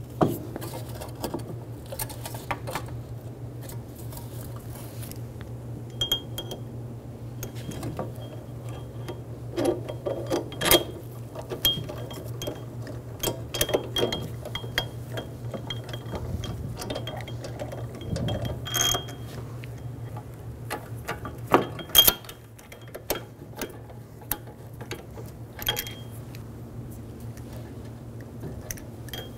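Scattered metal clicks, clinks and scrapes as a new wheel bearing hub assembly is shifted in the knuckle to line up its bolt holes and the mounting bolts are started, over a steady low hum.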